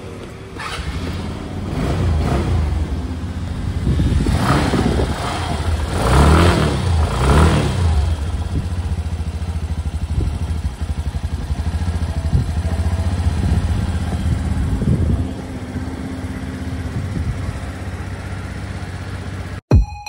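Taiwan Suzuki Address 125Z scooter engine running, blipped up and back down three times a few seconds in, then running steadily until it cuts off just before the end.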